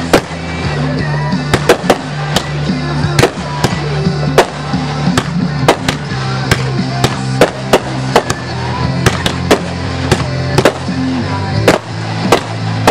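Aerial firework shells bursting overhead in quick succession, sharp bangs about two a second, with music playing underneath throughout.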